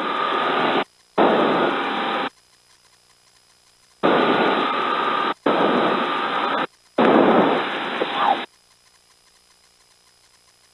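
Aircraft VHF radio in the headset feed opening on five short bursts of static hiss, each about a second or a second and a half long, each starting and cutting off abruptly as the squelch opens and closes. These are weak transmissions lost in the noise.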